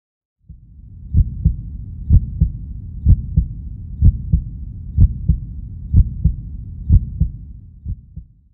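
Heartbeat sound effect: pairs of low thumps about once a second over a low rumble, starting about half a second in and fading out near the end.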